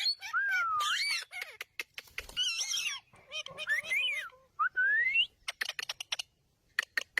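Parrots calling to each other: a run of whistled calls that glide up and down, mixed with squawky chatter, then a burst of sharp clicks near the end.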